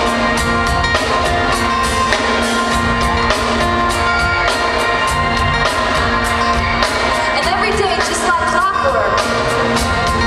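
A pop song with singing over a band, with a steady drum beat.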